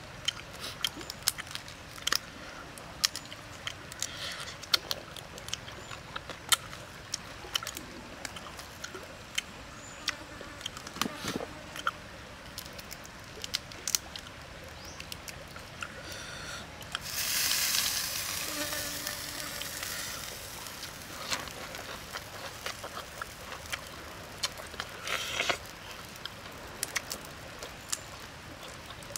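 Cooked prawn shells crackling and snapping as they are peeled apart by hand: a steady scatter of sharp little clicks and crunches, with a louder, denser stretch of rustling crackle for about three seconds just past the middle.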